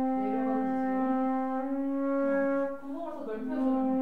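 A flute playing a long, sustained note in its low register, full of overtones; a little past two seconds in the tone wavers and briefly breaks, then settles and is held again.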